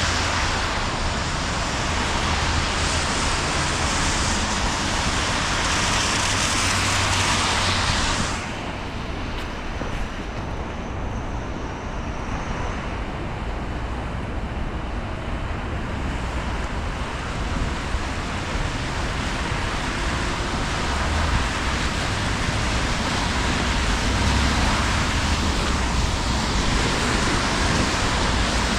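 Steady rain hiss mixed with city traffic on wet streets. The bright upper hiss falls away abruptly about eight seconds in, leaving a duller traffic rumble.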